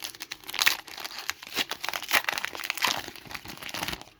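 Trading-card pack wrapper crinkling and crackling as it is handled, with rapid little crackles for about four seconds that stop abruptly near the end.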